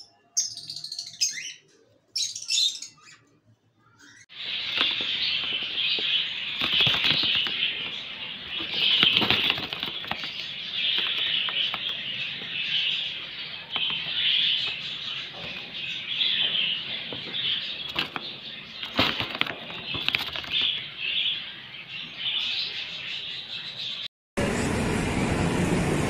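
A few short high chirps from a lovebird. Then a yellow budgerigar chatters continuously, broken by the stiff flutter of its wings. Near the end the sound cuts to a steady background noise.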